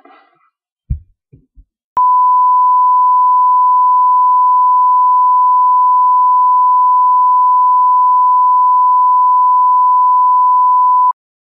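Steady test-tone beep, one unwavering pure tone of the kind played over colour bars. It switches on about two seconds in and cuts off suddenly just before the end.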